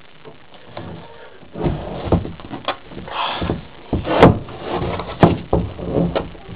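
Irregular knocks, bumps and scuffs of someone moving about and handling things, starting about a second and a half in, with the loudest knocks about four and five seconds in.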